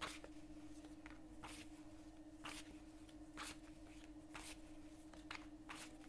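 A deck of tarot cards being shuffled by hand: faint, short swishes of cards sliding against each other, roughly one a second, over a steady low hum.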